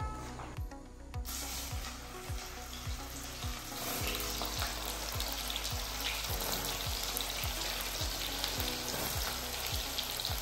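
Small chopped pieces of tender jackfruit dropped by hand into hot sesame oil in an aluminium pot, the oil sizzling steadily as they deep-fry. The sizzle starts about a second in, as the first handful goes in.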